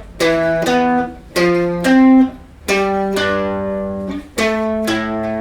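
Electric guitar playing two-note power chords (root and fifth) in a short run of about seven strikes, the shape shifting to new pitches, each chord cut short until the last is left ringing and fading.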